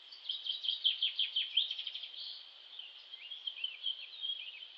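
A small bird singing a fast run of short falling notes, then a quieter, sparser phrase, over a steady high insect drone.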